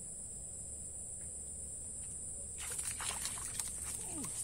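A hooked fish splashing and thrashing at the surface of a small pool as it is pulled in, a sudden rush of splashes starting about two-thirds of the way in. Under it, a steady high insect buzz.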